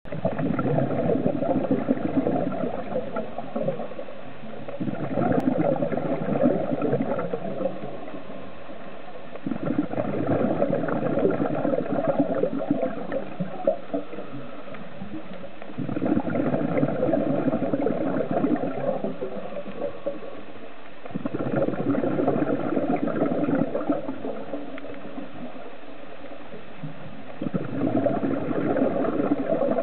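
Scuba diver's exhaled bubbles gurgling and crackling out of the regulator, heard underwater: six bursts of a few seconds each, one about every five to six seconds with each breath, over a steady quieter water wash.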